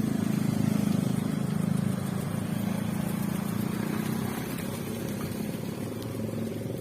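A 1991 Honda Grand Civic's four-cylinder petrol engine running steadily at idle, a little quieter after the first couple of seconds.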